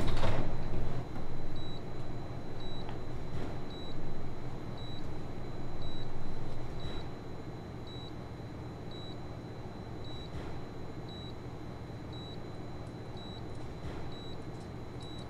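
An electronic beeper giving short, high-pitched beeps at one steady pitch, repeating about once a second, over a low steady hum.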